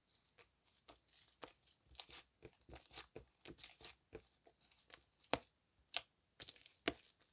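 Gel mixed with foam being squeezed and worked by hand, giving a run of irregular small crackles and pops, with two louder pops near the end.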